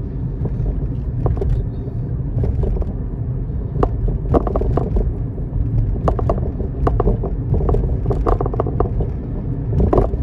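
Car cabin noise while driving: a steady low rumble from the road and engine, with frequent short knocks or rattles.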